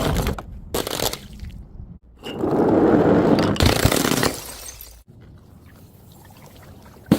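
Things being broken and crushed: a couple of short cracks in the first second, then a loud dense stretch of crunching noise of about two seconds that trails off.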